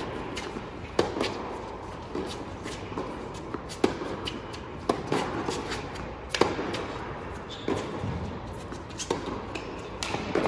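Tennis rally: rackets striking the ball and the ball bouncing, a sharp pop every second or so, each echoing in a large indoor tennis hall.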